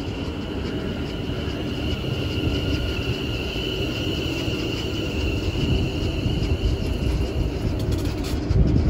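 West Midlands Railway Class 730 Aventra electric multiple unit rolling along the platform: low wheel rumble under a steady high whine that fades near the end. A louder low thump comes just before the end.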